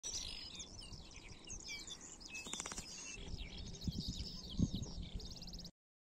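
Small songbirds chirping and twittering in many quick, overlapping high calls and short trills, with a few low thumps about four and a half seconds in; the sound cuts off suddenly near the end.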